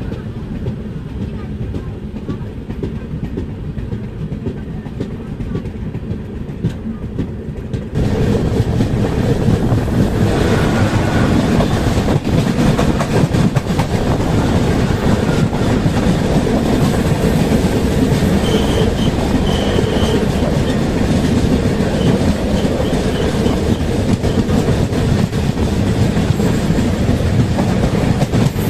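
Passenger train running at speed, heard from its open doorway: a steady rumble and clickety-clack of wheels on rail. About 8 seconds in it gets suddenly louder as an express, hauled by an electric locomotive, passes close on the adjacent track, coach after coach rushing by.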